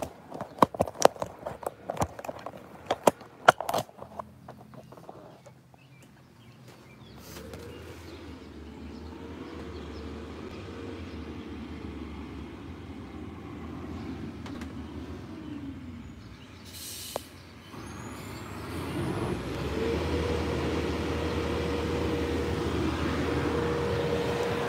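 Sharp clicks and knocks for the first few seconds, then a motor vehicle engine running steadily with a faint held tone; it fades about two-thirds of the way through and comes back louder near the end.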